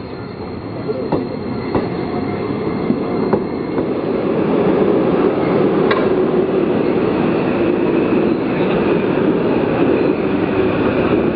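Tokyo Toden Arakawa Line tram running on its rails, with a few sharp clicks of the wheels over rail joints. About four seconds in, a louder, steady rumble of trains running takes over.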